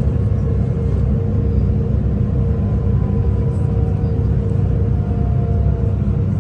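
Steady rumble of a V/Line VLocity diesel railcar heard from inside the carriage while running, with a constant hum and a faint whine that slowly falls in pitch.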